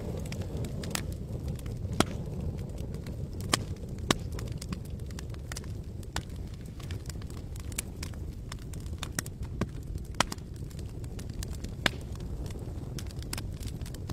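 Campfire crackling: irregular sharp pops and snaps of burning wood over a steady low rumble. A few louder pops come about 2 and 4 seconds in and again about 12 seconds in.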